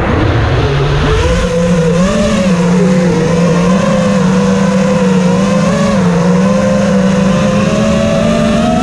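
FPV racing quadcopter's electric motors whining, heard from the drone's onboard camera. The pitch wavers with the throttle and rises a little near the end.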